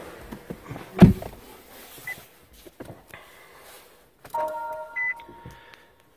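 A car door shuts with a thump about a second in. A few seconds later the 2017 Nissan Leaf sounds an electronic chime as the car is switched on: a held tone of a few notes with a short higher beep on top.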